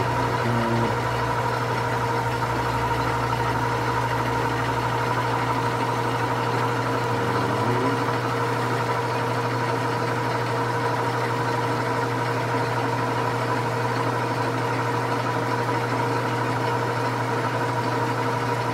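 Metal lathe running steadily with its clutch engaged while cutting a pinion gear: an even hum from the motor and gearing with a thin steady whine over it.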